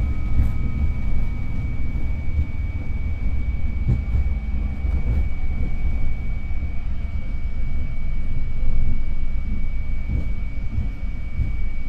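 Flight-deck noise of a jet airliner slowing on the landing rollout: a steady low rumble from the engines in reverse thrust and the wheels braking on the runway. A thin, steady high tone runs through it.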